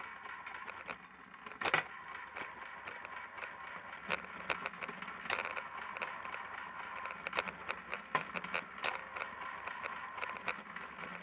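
Wire stripping machine running as thick copper cable is fed through, a steady whine with irregular sharp clicks and cracks from the blade slitting the insulation.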